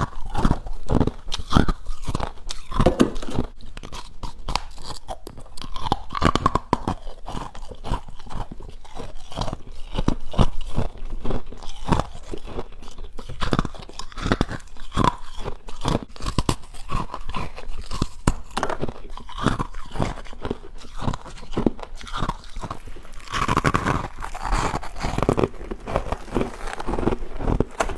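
A person chewing freezer frost close up: a steady run of crisp crunches throughout, louder for a couple of seconds near the end.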